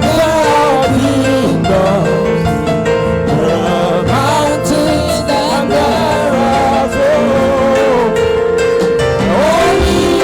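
Gospel music with a singing voice over sustained instrumental chords.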